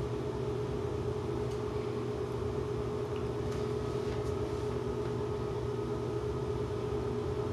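Steady machine hum at a constant pitch, with a few faint light clicks.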